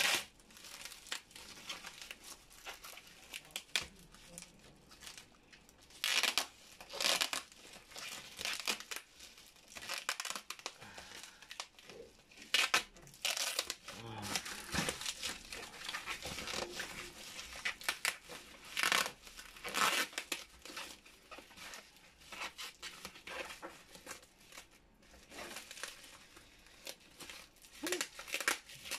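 Bubble wrap and plastic wrapping crinkling and rustling as hands pick at and peel tape off a wrapped cardboard box, in irregular bursts with a few louder tearing rips.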